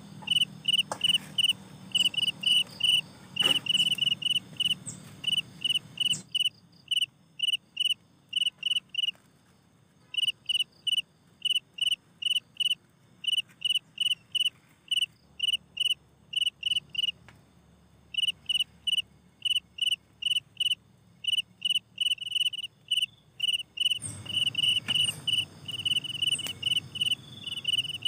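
Crickets chirping in a steady rhythm of short, high chirps, about three a second. A low background and a few light knocks come and go underneath.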